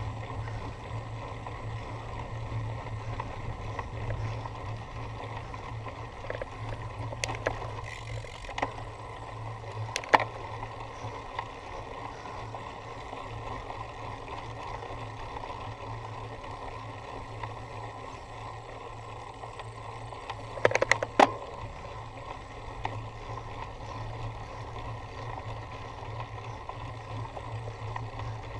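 Cyclocross bicycle being ridden over rough ground: a steady rumble of wind and tyre noise, with a few sharp knocks about seven and ten seconds in and a quick rattle of several near twenty-one seconds.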